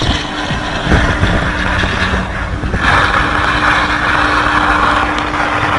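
Burning car's fire giving a loud, steady hissing rush that grows louder about three seconds in, with a faint steady hum underneath.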